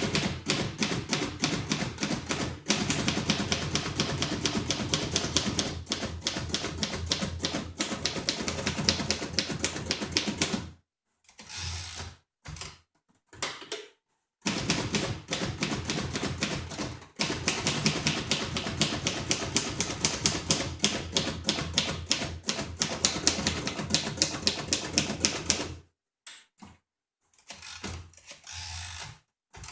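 1948 Royal Quiet De Luxe manual typewriter being typed on: long runs of fast, even keystrokes with typebars striking the platen, broken by a short pause about eleven seconds in and another near the end, where only a few separate clacks are heard.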